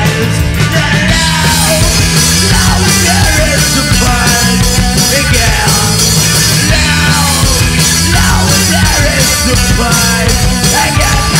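Psychobilly band playing live: drums with cymbals, bass, guitar, and a singer at the microphone. The cymbals come in harder about a second in.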